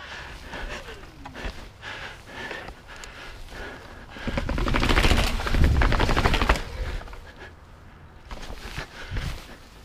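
A mountain bike's rear freewheel hub clicking in a rapid, even buzz as the rider coasts, loudest from about four to nearly seven seconds in, over a low rumble.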